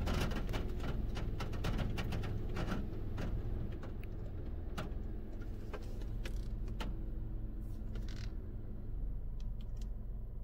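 Spinning brushes of a D&S IQ soft-touch car wash slapping against the car, heard from inside the cabin over a steady low rumble. The slaps come thick and fast for about the first four seconds, then thin out to scattered hits.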